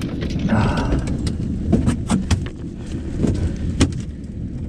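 Scattered sharp knocks and thumps on a fishing boat, over a steady low rumble.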